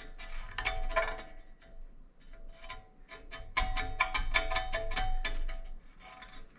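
Metal pick scraping and ticking in the retaining-ring grooves of a bicycle frame's press-fit bottom bracket shell, clearing out dirt and rust. Each quick stroke sets the frame ringing with a faint bell-like tone. The strokes thin out for a moment before the middle, then come thick and fast again.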